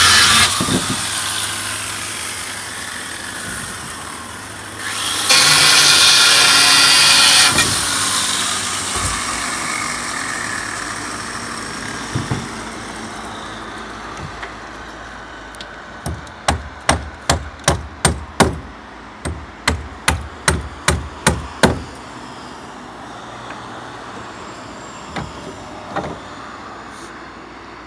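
Hammer driving nails into wooden boards: a fast run of sharp blows, about three a second, for several seconds, then a few more near the end. Earlier, loud traffic passes on the road and fades away slowly.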